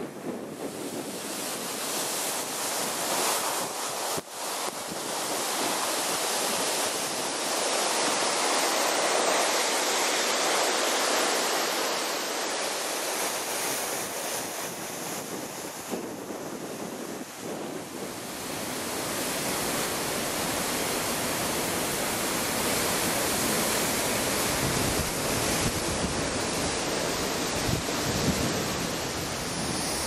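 The Chaudière River falls, running through their winter ice: a steady rush of falling water. Gusts of wind buffet the microphone, heavier in the second half.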